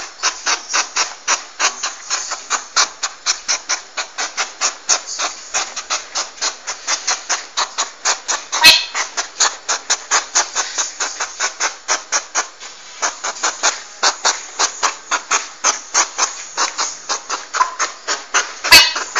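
Porcupine rattling its quills: a rapid, rhythmic, hissing rattle of about five pulses a second, with a sharp click about nine seconds in and two more near the end.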